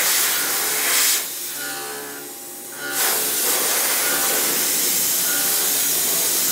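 A loud, steady hiss over quiet background guitar music: a short burst at the start, then a steady hiss from about halfway.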